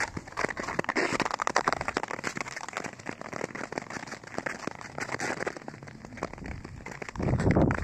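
Nordic skate blades gliding and scraping over snow-covered natural lake ice: a dense, steady crackle of fine scratches. Near the end a louder, deeper rush comes in.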